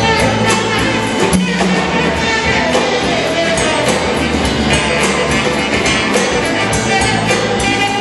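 Live rock and roll band playing: saxophone over electric guitar, bass guitar and drums, with a steady beat.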